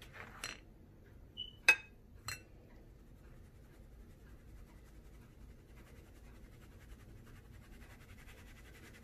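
A metal spoon and fine-mesh strainer clink against a glass mixing bowl a few times in the first couple of seconds, the loudest about two seconds in. Then comes the faint scratchy rustle of flour being sifted through the strainer's mesh.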